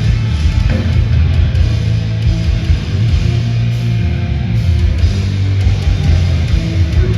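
Live heavy metal band playing loud, with distorted guitars and heavy low end.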